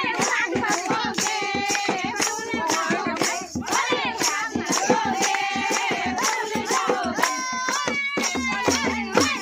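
Women singing a Kumauni folk song together, with rhythmic hand-clapping keeping a steady beat.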